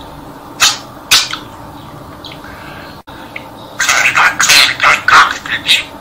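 Talking budgerigar chattering: two short sharp calls about half a second and a second in, then after a quieter pause a fast run of chatter from about four seconds in.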